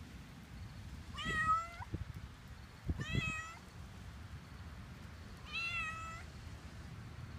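Domestic cat meowing three times, short calls about two seconds apart.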